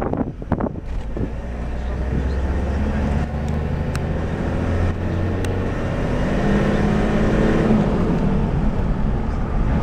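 Engine and road noise of a moving vehicle, heard from inside the cabin: a steady low hum that grows gradually louder as the vehicle speeds up.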